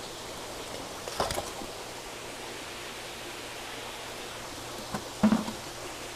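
Steady hiss of water running through the recirculating fish-tank system, broken by two short sharp sounds, about a second in and about five seconds in, while a German Shepherd mouths a dead fish on the floor.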